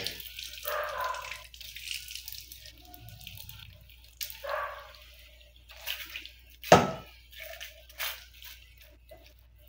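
Hot caramel syrup pouring and dripping from a stainless steel pot into a glass baking dish, with soft scraping of a spatula. There is one sharp knock about seven seconds in.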